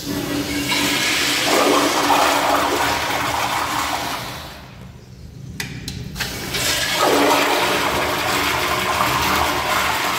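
Toilet flushing twice: a rush of water lasting about four seconds that fades, then a couple of sharp clicks and a second rush starting a little past the middle.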